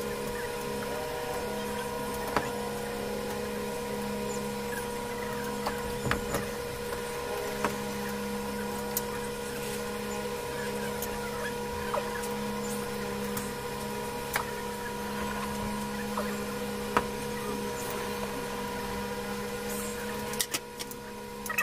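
A steady mechanical hum, with a sharp click every few seconds as pliers cut and twist electrical wires at a junction box.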